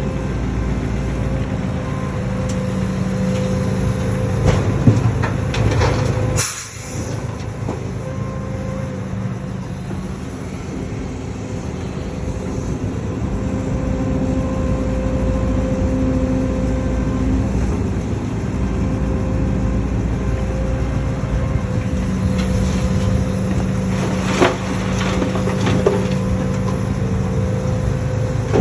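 Hydraulic excavator's diesel engine running steadily under load while digging and loading soil. Scattered knocks and clatter come a few seconds in and again near the end, and a short sharp hiss comes about six seconds in.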